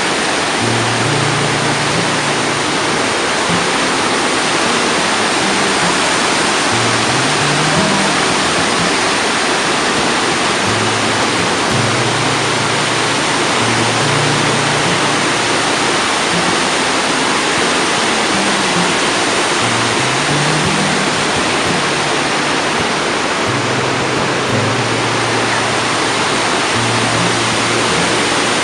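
Steady roar of the Iguazu Falls' plunging water. Underneath runs music with low bass notes that change every second or so.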